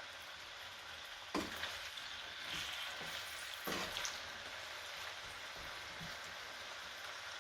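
Chicken breast pieces frying in olive oil in a pan with a steady sizzle. Two knocks come about a second and a half in and again near four seconds.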